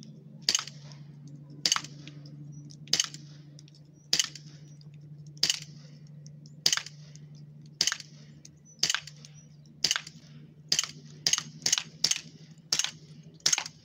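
Umarex Colt Commander 1911 BB pistol, powered by a 12-gram CO2 cartridge, firing 4.5 mm steel BBs shot after shot: about fifteen sharp pops, roughly a second apart at first and coming faster near the end.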